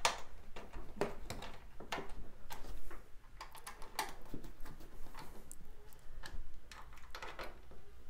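Hand screwdriver turning screws into the back of a metal computer case, making irregular small clicks and ticks as the screws and bit catch. The screws are fastening the power supply's mounting plate to the case.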